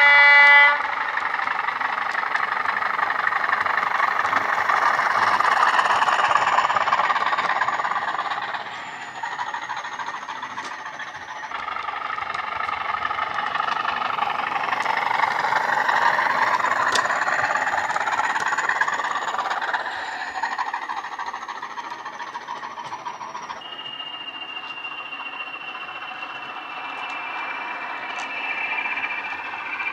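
Sound-decoder recording of a Class 20's English Electric diesel engine, played through a small slim speaker in an OO gauge model. It opens with a short horn blast, then the engine swells and eases twice as the model runs. About three-quarters of the way in it settles to a quieter, steadier note with a high whine.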